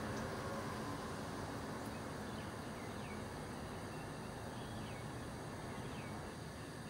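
A few faint, short high chirps from a caged blackthroat (black-throated canary), scattered over a steady background rumble and hiss.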